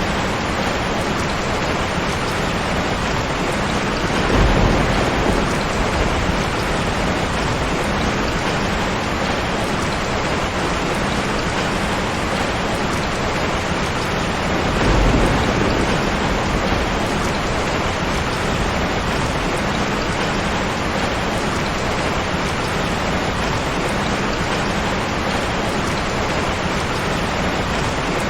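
Steady rain falling, with two short low rumbles of thunder, one about four seconds in and another about fifteen seconds in.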